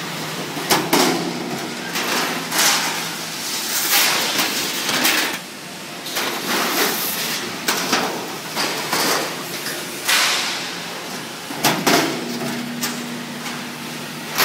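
Sheet-metal workshop noise: repeated metallic clanks and knocks with a noisy rattle between them. A steady machine hum runs for the first few seconds and comes back near the end.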